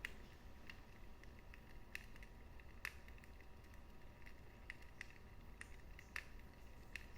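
Wood fire in a fireplace crackling: irregular sharp pops and snaps over a faint steady low rumble, the loudest pops near the start, about three seconds in and about six seconds in.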